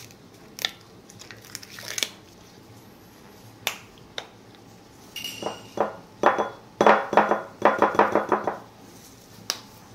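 Sesame-seed jar handled and shaken over a small ceramic bowl. A few separate clicks come first, then, about two-thirds of the way through, a quick rattling run of taps, about six a second, as the last seeds are shaken out of the nearly empty jar.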